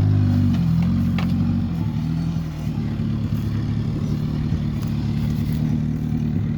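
Suzuki Samurai engine running steadily under load, its pitch dipping slightly about half a second in and then holding. A couple of short knocks and clatters sound over it, the first about a second in.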